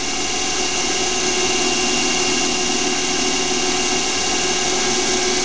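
Small CNC lathe running steadily with its spindle turning, a constant mix of whine and hiss as the tool grooves a Delrin part.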